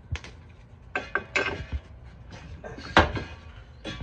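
Metal clanks and knocks from a coil-spring strut assembly, clamped in a spring compressor, being worked into the front suspension. A cluster of knocks comes about a second in and the loudest single clank about three seconds in.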